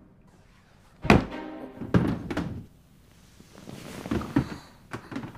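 A loud thunk about a second in, then a second knock about a second later and softer knocks after, over music.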